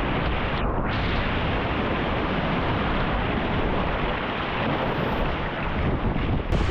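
Strong wind buffeting an action camera's microphone in a steady, heavy rumble, mixed with breaking surf and rushing whitewater.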